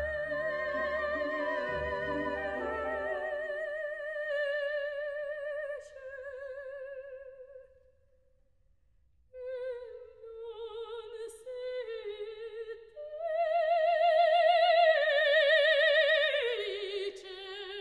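Operatic soprano singing a bel canto aria with a wide vibrato. She holds a long note while the low orchestral accompaniment drops away after a few seconds, then after a brief pause sings unaccompanied ornamented phrases up to a loud held high note and steps back down.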